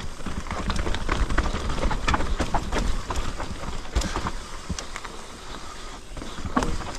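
Mountain bike riding down a rough trail: tyres running over stones and roots, with the bike rattling in a dense run of sharp knocks and clicks over a low rumble. The knocks are thickest in the first four seconds and thin out after that.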